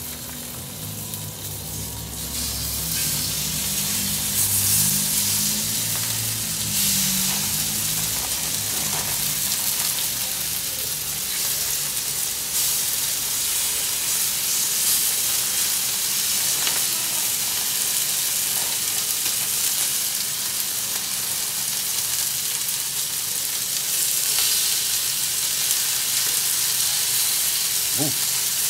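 Cornstarch-coated chicken thigh pieces sizzling as they are dropped one by one into very hot oil in a stainless steel skillet. The sizzle grows over the first few seconds as the pan fills, then holds steady with brief surges as more pieces go in.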